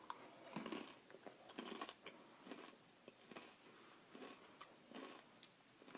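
Faint crunching of Fritos corn chips being bitten and chewed, a string of short crunches about once a second.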